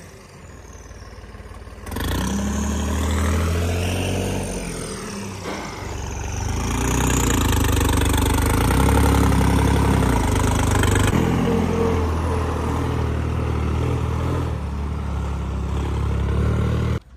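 Heavy diesel engines of a tractor and a bulldozer revving hard under load in a tug-of-war pull, the note climbing and dipping. It comes in strongly about two seconds in and cuts off abruptly near the end.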